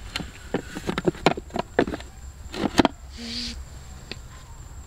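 Cats feeding from a steel tray of raw fish pieces: irregular sharp clicks and knocks of teeth, fish and metal over about three seconds, then a brief rustle and quieter sounds.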